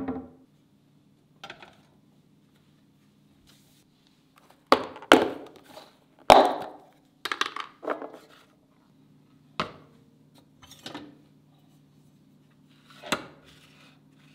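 Kitchen utensils and cookware being handled: about ten irregular knocks and clinks, each ringing briefly, the loudest clustered in the middle, over a steady low hum.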